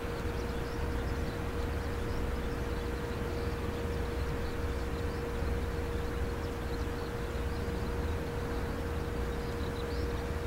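Rolls-Royce Trent XWB engines of an Airbus A350-900 on final approach: a steady rumble with a constant mid-pitched tone, not yet growing louder.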